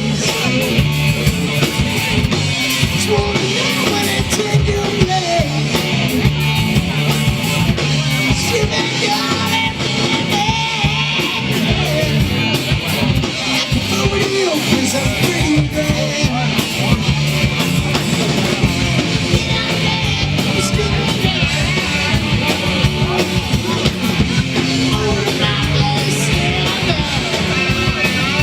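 Rock band playing: electric guitar and drums with a singer, loud and continuous.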